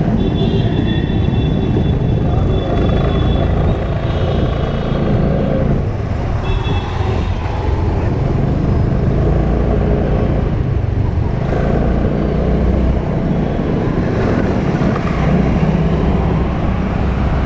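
Steady riding noise from a scooter moving through city traffic: engine and tyre drone with low wind rumble on the microphone and passing auto-rickshaws and cars. A couple of high, steady tones sound near the start and again about six seconds in.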